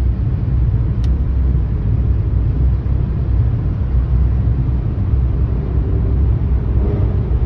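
Steady low rumble of a car's tyre and engine noise heard from inside the cabin while driving at highway speed, with one faint click about a second in.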